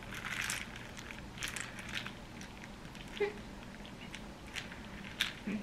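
Metal spoon scraping and clicking against the inside of a plastic cup of iced lemonade, fishing for a popping bubble: scattered light clicks and rustles.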